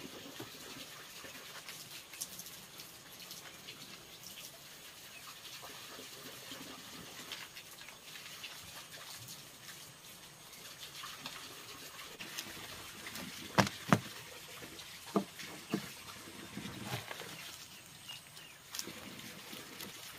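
Water trickling steadily, with a few sharp knocks about two-thirds of the way through, the loudest two in quick succession.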